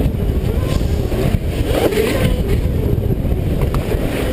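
Zero MX electric dirt bike's motor whining, rising and falling in pitch with the throttle, over a heavy rumble of wind and riding noise on the helmet-mounted microphone. A few sharp knocks as the bike goes over the bumpy dirt trail.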